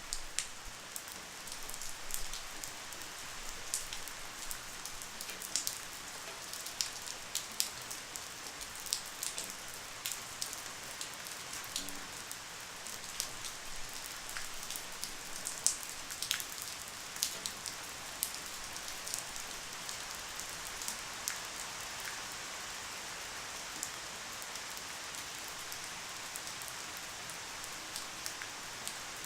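Light rain falling steadily, a soft even hiss with scattered individual drops ticking sharply, more of them in the first half.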